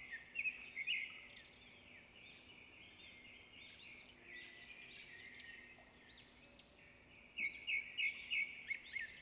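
Small birds chirping and twittering in short rising and falling notes, with a quick, evenly spaced run of louder chirps near the end.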